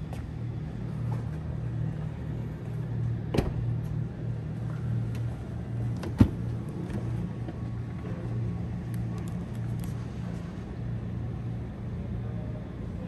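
Steady low hum with two sharp knocks, about three and a half and six seconds in, the second the louder, as the 2023 Genesis G90's rear door is unlatched and swung open.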